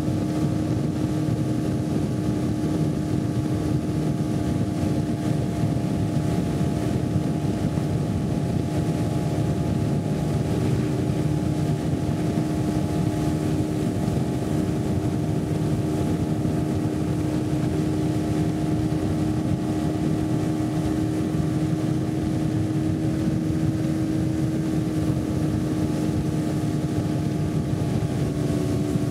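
Small motorboat's engine running steadily at cruising speed, a constant droning hum.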